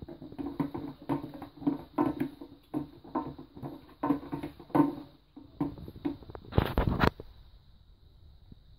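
Plastic toilet syphon and cistern being handled while the syphon thread is fitted through the cistern's base hole: irregular light plastic knocks and clicks, with a louder clatter about two thirds of the way through.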